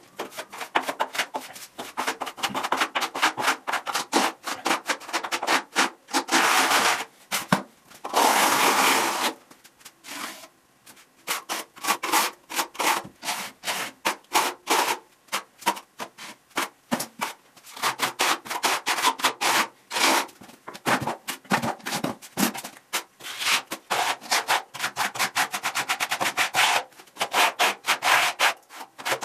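Steel plastering spatula scraping a thin lime-based skim coat across a wall in quick repeated strokes, with a few longer sweeps about a third of the way in and a short pause after them.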